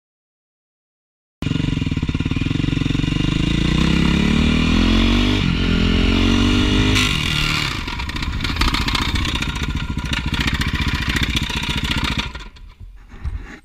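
Dirt bike engine accelerating hard through the gears: its pitch climbs steadily, drops at a gear change about five and a half seconds in, and climbs again. From about seven seconds in the sound turns rougher and noisier, then dies away near the end.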